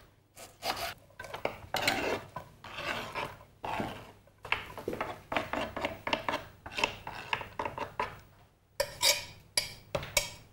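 Kitchen knife chopping an onion finely on a cutting board: irregular taps and scrapes of the blade, with some clatter of utensils and dishes.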